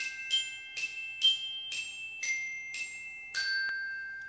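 Short intro jingle of bright mallet-percussion notes, glockenspiel-like, struck about twice a second. The last note, a little after three seconds in, rings on and slowly fades.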